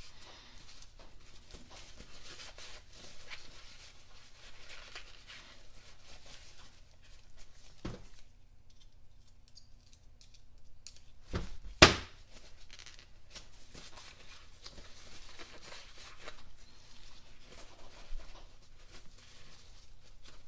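Hand cleaning of a speedometer pinion gear housing: scratchy wiping and scrubbing noises that come and go, with a knock about eight seconds in and one sharp, loud clunk of metal set down about twelve seconds in.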